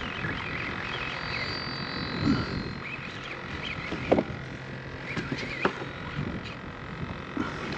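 Outdoor marsh ambience: a steady chorus of animal calls with short chirping calls over it, and a few brief sudden sounds about two, four and five and a half seconds in.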